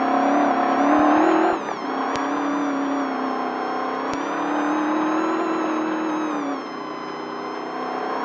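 Off-road race truck engine running hard under throttle, the revs climbing and then falling sharply about a second and a half in as the driver lifts or shifts, then pulling steadily and easing off again near the end. A few sharp knocks come through from the truck over the rough course.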